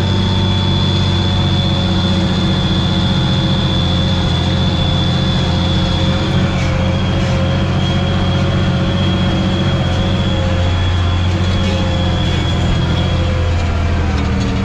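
Tractor diesel engine running steadily under load while pulling a harrow, heard from inside the cab, with a thin steady high whine over it that fades out near the end.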